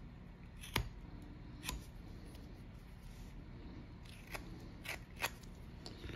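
Carving knife slicing small chips from a block of wood: five short, sharp cuts at uneven intervals over faint room noise.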